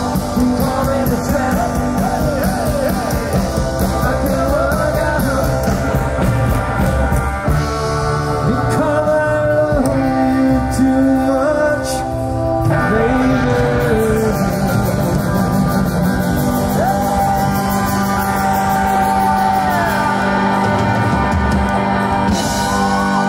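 Live band playing rock 'n' roll on stage through the PA: a sung vocal line over upright double bass, electric guitar and drums.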